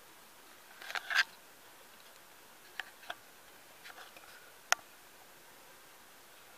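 Handling noise: a few small clicks and a short rustle over a low steady hiss. There is a brief rustling cluster about a second in, two light ticks around three seconds, and one sharp click just before five seconds.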